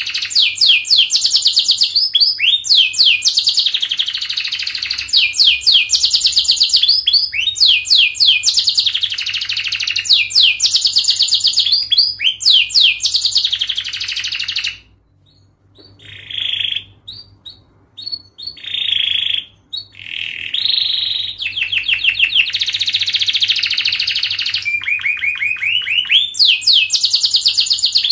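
Domestic canary singing long, fast trills of rapidly repeated notes in phrases of about two seconds. About halfway through it breaks off briefly into quieter, separate short notes before the rapid trills start again.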